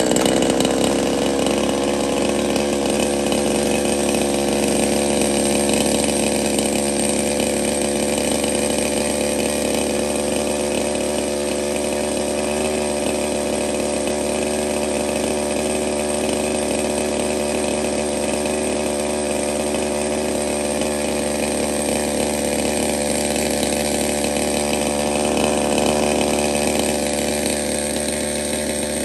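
Ported Stihl MS 200 T top-handle chainsaw's two-stroke engine running steadily at high revs for a long, unbroken stretch.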